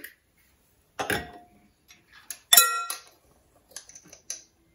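Metal measuring spoon and glass mixing bowl clinking while salt is measured into flour. There is a knock about a second in, a louder ringing clink about two and a half seconds in, and a few lighter clicks near the end.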